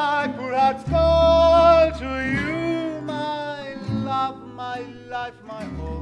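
Male voice singing a gypsy-jazz song with vibrato, holding one long note about a second in, then a short phrase that rises and falls. Acoustic guitars and double bass accompany.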